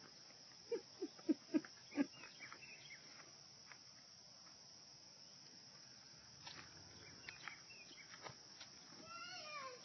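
Quiet outdoor ambience with a steady high drone of insects. About a second in come five short, sharp low knocks in quick succession, then scattered light ticks and taps, and near the end a brief wavering sound that slides down in pitch.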